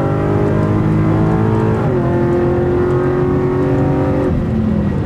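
Naturally aspirated 7-litre (427) V8 of a Cadillac CTS-V running at high revs under hard acceleration, heard from inside the cabin. The engine note holds high, dips slightly about two seconds in, holds again, and eases off near the end.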